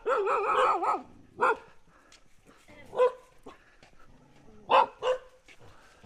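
Dogs barking aggressively at a stranger: a drawn-out wavering bark in the first second, then single barks spaced a second or two apart, two of them close together near the end.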